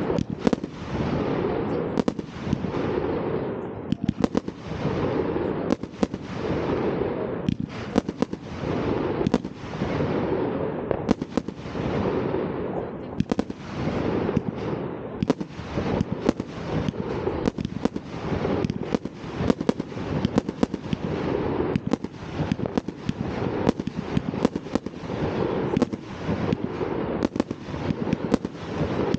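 New Year's Eve fireworks going off without a break: many bangs close together with crackling, and a fresh swell of bursts every second or two.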